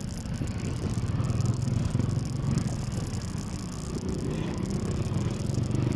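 A small motorcycle engine running steadily while riding in slow traffic, with steady road and wind noise.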